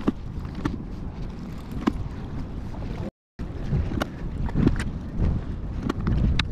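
Wind buffeting the microphone as a steady low rumble, with scattered light clicks and knocks. The sound drops out completely for a moment about three seconds in.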